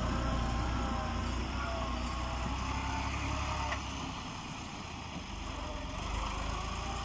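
Massey Ferguson 260 tractor's three-cylinder diesel engine running under load as it pulls a trolley loaded with sand, dropping in level about four seconds in as it moves away.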